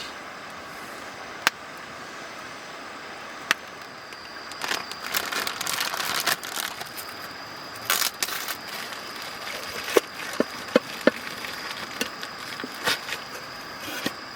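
Wood campfire crackling, with sharp pops and snaps scattered through and a denser burst of crackling about a third of the way in. A thin steady high tone joins about four seconds in.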